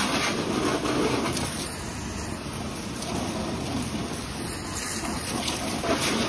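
Pressure-washer jet spraying water onto a car's bodywork, a steady hissing spray.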